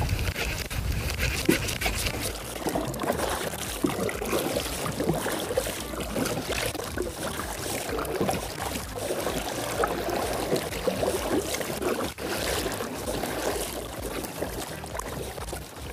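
Seawater lapping and trickling against a kayak's hull, with small irregular splashes and a low rumble of wind on the microphone.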